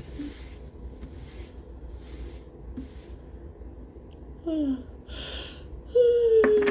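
A person breathing audibly, then two short wordless hums, the second louder and held, slightly falling in pitch.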